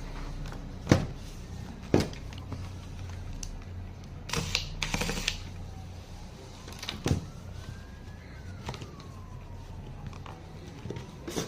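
Sharp clicks and knocks with two brief scraping rustles, from handling a laptop's case and parts during a hard-drive swap. A faint siren rises and falls in the background in the second half.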